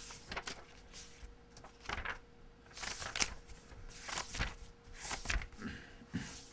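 Paper rustling as book pages are turned and handled, in several short bursts, over a faint steady electrical hum.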